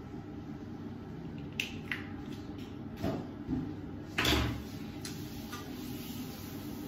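Small clicks and knocks of items being picked up and set down at a bathroom sink, with a louder, deeper thump about four seconds in, over a steady background hum.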